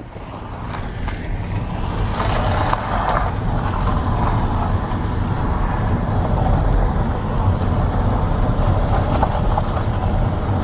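A car driving slowly, its engine and tyres making a steady low rumble that grows a little louder over the first two seconds, with a brief hiss about two to three seconds in.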